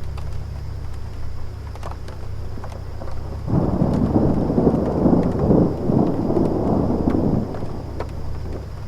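Room air conditioner running with a steady low hum and a faint high whine. A roll of distant thunder swells suddenly about three and a half seconds in, rumbles for about four seconds and dies away under the hum.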